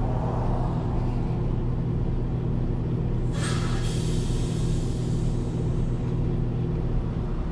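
Peterbilt 579 semi-truck's diesel engine running with a steady low drone heard from inside the cab, creeping in stop-and-go traffic. A little over three seconds in comes a short hiss of air from the truck's air brakes, which fades away over about two seconds.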